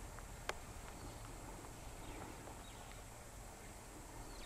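Faint sounds of white rhinos grazing, cropping short grass, with one sharp click about half a second in and a few faint high chirps.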